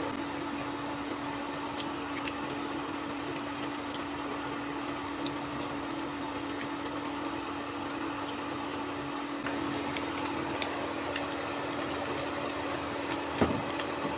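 Onion pakoras deep-frying in hot oil in a pan: a steady sizzle with many small pops and crackles over a steady low hum. A single sharp knock near the end.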